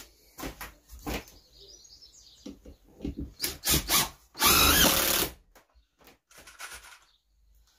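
Makita cordless impact driver driving a screw into a glued pine half-lap joint: a few short bursts and clicks, then one loud run of about a second near the middle as the screw goes home.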